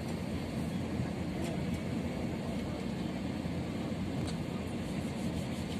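Steady low engine rumble of airport apron machinery.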